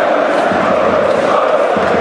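Large block of football ultras chanting together, a loud, steady mass of voices.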